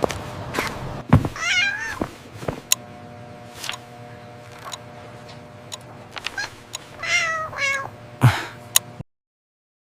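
A cat meowing: one wavering meow about a second in and two more around seven seconds, with scattered light knocks and taps between them. The sound cuts off abruptly near the end.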